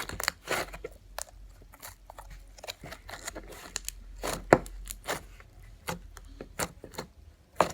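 Homemade slime being squished and pulled by hand, giving irregular sticky crackles and pops, with the loudest pop about four and a half seconds in.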